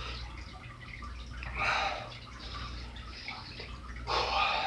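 Two heavy, breathy exhales about two and a half seconds apart, a person catching their breath after a set of heavy dumbbell rows, over a low steady hum.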